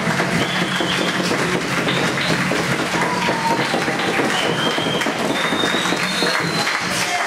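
Crowd applauding steadily, with a few short high tones over the clapping.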